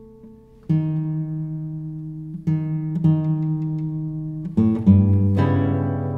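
Classical guitar played solo in an improvisation: after a quiet lull, single plucked notes ring out one at a time with pauses between, then a quicker, louder run of several notes comes near the end.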